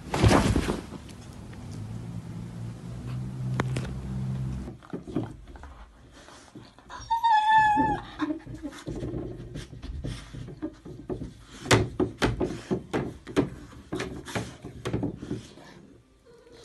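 A loud thump as a black cat leaps onto a bed. After a cut, a short wavering high-pitched animal call, then a run of sharp knocks and clacks from a plastic cat flap as a husky pushes its head through it.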